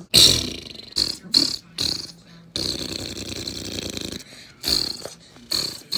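A person voicing battle sound effects with the mouth for toy soldiers opening fire: a run of short, sharp, hissing bursts, with one longer hiss in the middle.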